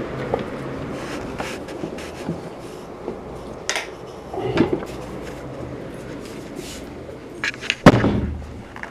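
Scattered clicks and knocks of a wooden door and of moving about in a small room, with one loud knock near the end.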